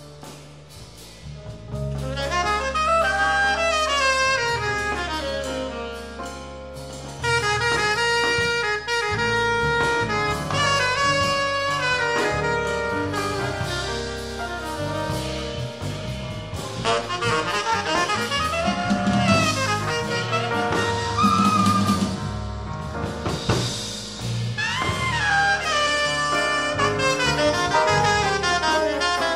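Tenor saxophone soloing in a live jazz performance, with the rhythm section and drum kit accompanying. The music is quiet at first and swells much louder about two seconds in.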